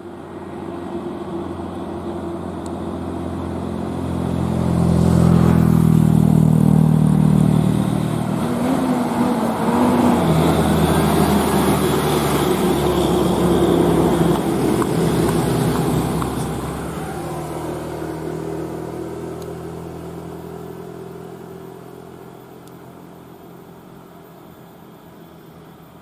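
Diesel container truck passing close by, its engine note swelling about four seconds in, staying loud through the middle as it goes by, then fading away over the last ten seconds.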